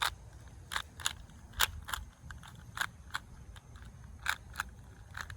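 Rubik's Cube being twisted by hand, its plastic layers clicking with each turn: about a dozen sharp, irregularly spaced clicks.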